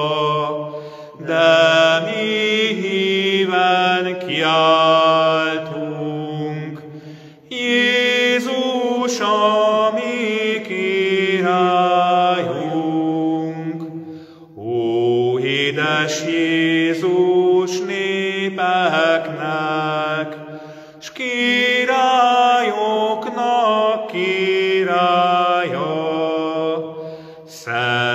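A man singing a slow Catholic hymn solo, in long held phrases with short breaks for breath. It is a hymn usually sung on the feast of Christ the King.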